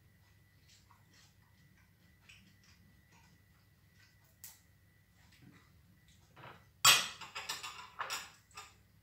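People eating at a table with their hands and a fork, making faint clicks and taps on plates. About seven seconds in comes a sudden loud crunching noise lasting over a second, then a few smaller ones.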